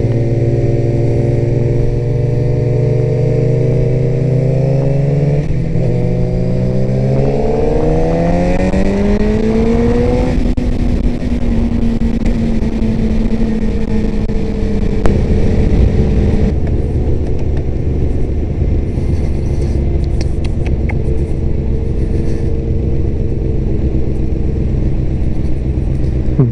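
Sport motorcycle engine heard from the rider's helmet camera, with wind rushing on the microphone. The engine holds a steady note, then its revs climb for about five seconds as the bike accelerates, level off, and the engine note falls away about two-thirds through, leaving mostly wind noise.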